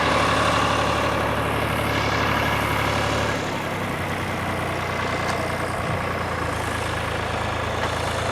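Tractor engine running steadily at low speed; about three seconds in its low note drops as the engine slows.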